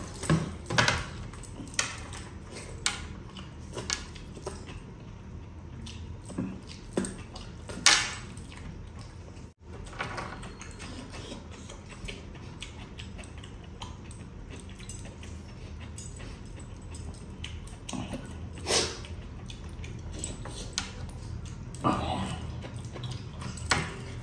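Close-up eating sounds from a man eating by hand: wet chewing, lip smacks and finger licking, with scattered clicks and scrapes of fingers picking food off a serving tray. These come at irregular times, and a few are louder.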